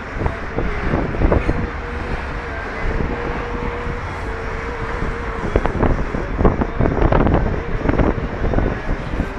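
Outdoor traffic noise with wind on the microphone. A single held note wavers slightly through the first half and stops about halfway, and wind gusts buffet the microphone in the second half.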